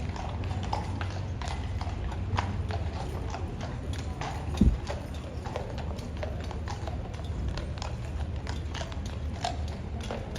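Irregular sharp taps or clops, several a second, over a steady low rumble, with one short, loud, low thump about four and a half seconds in.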